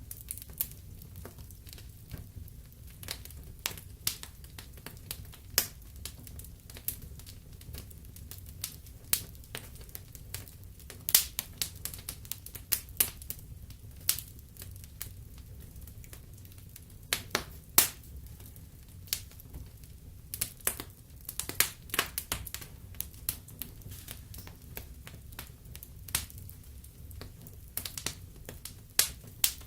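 Fire crackling in a fireplace: irregular sharp pops and snaps over a low steady rumble.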